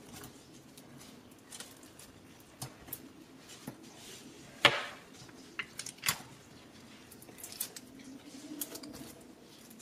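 Sticky clicks and small wet pops of clear slime being pressed and poked with fingers, scattered and irregular, with one sharper pop about halfway through.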